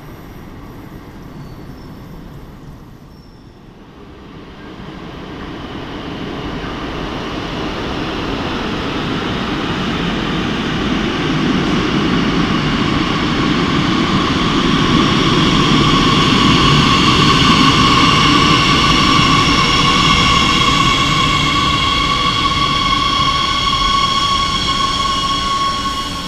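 Madrid Metro Serie 8000 train arriving at an underground platform: a low rumble builds as it approaches, and about halfway through a steady high whine in several tones joins it as the train slows alongside the platform.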